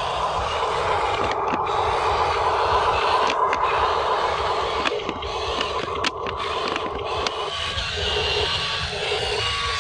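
Small electric motors of a radio-controlled excavator whirring steadily as it digs and moves its arm, with soil scraping under the bucket and tracks.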